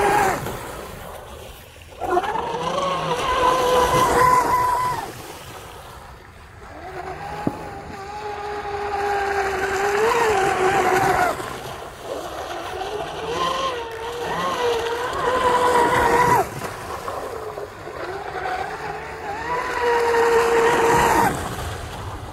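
Pro Boat Blackjack 42 RC catamaran running fast: its brushless motor whines in four throttle passes of a few seconds each over the hiss of spray, each pass cutting off sharply. Power cuts out after the last pass, which the owner guesses is the battery packs.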